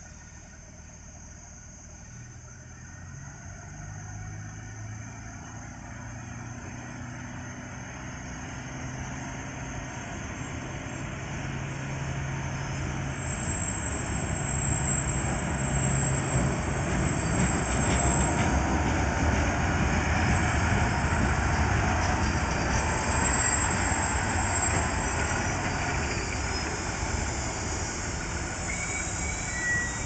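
JR West rail flaw-detection car 7700 pulling away and coming down the track: a low, steady engine hum that grows steadily louder, turning into the heavy rumble of its wheels on the rails as it draws level and passes in the second half.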